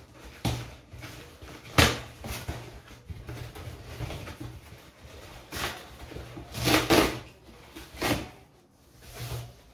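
Cardboard shipping box being opened by hand: several short, loud tearing and scraping bursts as the taped flaps are pulled open and the contents handled.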